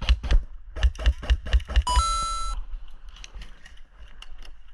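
Airsoft guns firing in quick irregular shots for about two seconds, then a brief ringing tone of about half a second.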